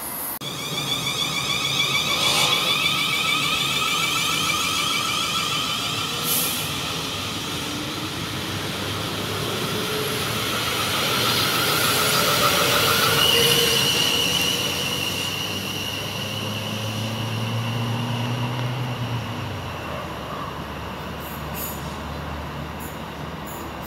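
South Western Railway electric multiple-unit trains running through the station, with a steady multi-toned whine of traction motors over the rumble of wheels on rail. A higher single tone comes in about halfway through and fades a few seconds later, and a low hum swells and drops away late on.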